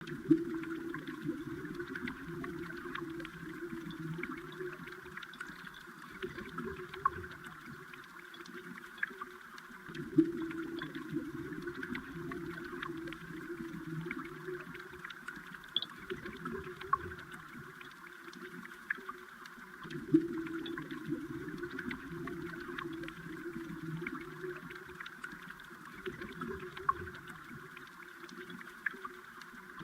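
Stream water heard underwater: a steady bubbling rush with scattered small clicks and ticks, swelling about every ten seconds.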